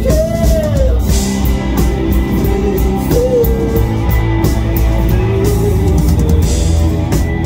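Live rock band playing loud: electric guitar over a drum kit, with some bending lead notes.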